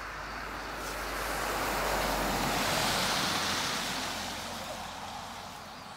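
A vehicle passing on a wet, slushy road: tyre hiss swells to a peak about three seconds in, then fades away.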